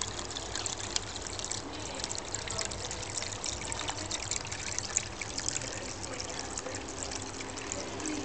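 Water from a wall-mounted water feature running down its back panel and splashing into the trough below: a steady, even trickle and splash.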